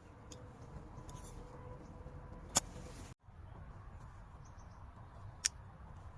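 Gas derringer pistol: two short sharp snaps about three seconds apart, the first louder, with a brief dropout to silence between them.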